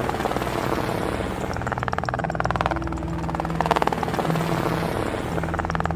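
Helicopter sound effect: a steady, fast rotor chop that swells and fades a little in waves.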